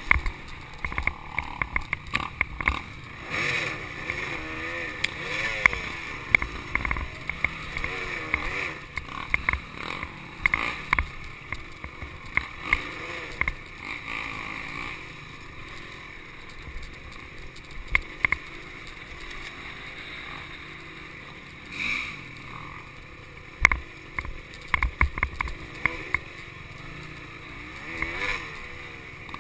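Honda CRM250 two-stroke dirt bike engine revving up and down while being ridden along a rough woodland trail, pitch rising and falling constantly with throttle. Frequent sharp knocks and rattles from the bike hitting bumps run throughout.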